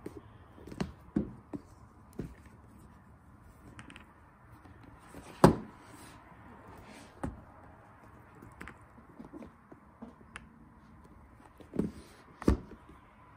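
Cardboard projector packaging being handled: scattered taps and knocks as the outer sleeve is slid off and the red box's lid is opened. The sharpest knock comes about five and a half seconds in, with two more near the end.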